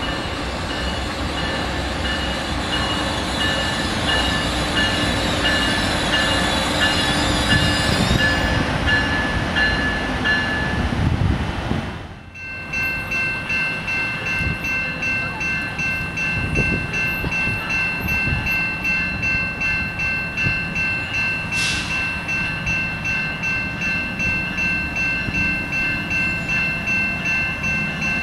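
Level-crossing bell ringing steadily at about two strokes a second as a commuter train hauled by a Bombardier ALP-45DP locomotive approaches on the rails. In the first part the train's rumble builds with the bell heard faintly over it.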